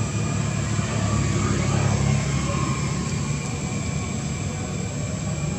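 Steady low rumble of distant engine noise, with no clear start or stop.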